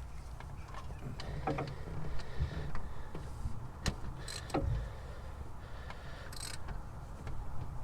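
Hand tools and metal engine parts clicking and knocking at irregular intervals, with one ringing metallic knock about halfway through, as the power steering pump's mounting bolts are worked on and tightened.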